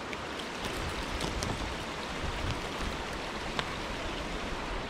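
Small creek water running steadily over and through a stick dam, with a few faint ticks.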